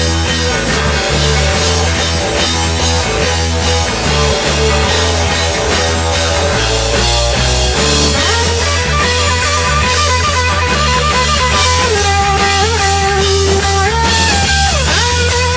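Rock band playing: electric guitar, bass and drum kit, with a sliding lead guitar melody coming in about halfway through.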